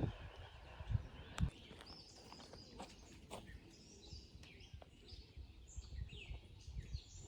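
Birds chirping outdoors: short high calls and sliding notes, over uneven low rumbling thumps on the microphone.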